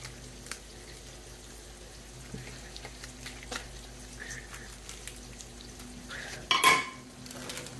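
Food frying in a pan with a soft steady sizzle, under light kitchen handling clicks as ground meat is formed into patties with a small press. About six and a half seconds in, a brief louder clatter.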